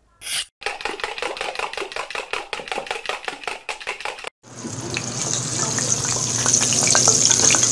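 Kitchen sound effects for a cooking channel's intro. First comes a fast run of short strokes, like a knife chopping on a board, for about four seconds. Then a steady hiss, like a running tap, carries on for about four seconds and stops.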